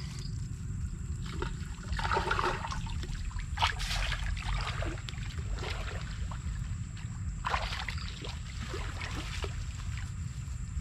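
Shallow muddy water sloshing and splashing as someone wades and gropes in it by hand, with several louder splashes, over a steady low rumble.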